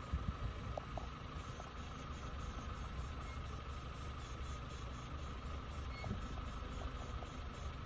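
A vehicle engine idling steadily, a low hum.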